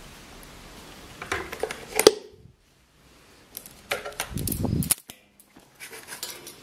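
Handling noise as a phone is moved against a fabric curtain: clusters of sharp clicks and knocks, about a second and a half in, around four seconds and again near six seconds, with a short low rubbing sound around four and a half seconds.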